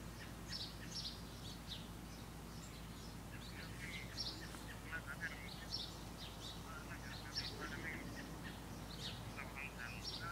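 Birds chirping: many short, high calls scattered throughout, some of them quick trills.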